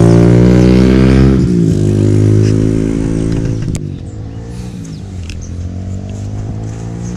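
Honda RS150 underbone motorcycle's single-cylinder four-stroke engine, on a Cardinal Racing 32 mm exhaust run without its silencer, accelerating hard through the gears. The note climbs, drops at a gearshift about a second and a half in and again nearly four seconds in, then climbs again. It grows fainter as the bike pulls away.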